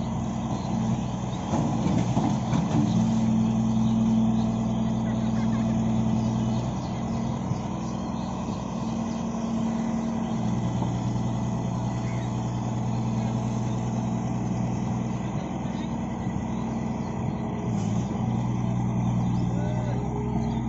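Amphibious excavator's diesel engine running steadily, its note shifting between a higher and a lower pitch several times.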